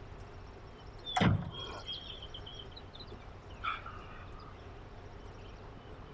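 A car door on a black Volkswagen sedan shutting with a single thump about a second in, followed by a few faint high chirps over quiet background hiss.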